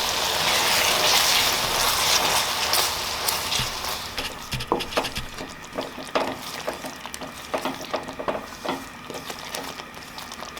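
Sizzling in a hot pan, loudest at first and fading over the first few seconds, then scattered clicks and knocks of kitchen utensils.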